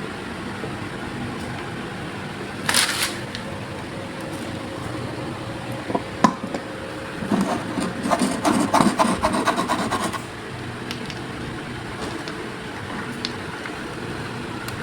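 Toy cars being handled and played with. There is a short scrape about three seconds in, a few clicks, then about three seconds of rapid rattling clicks in the middle.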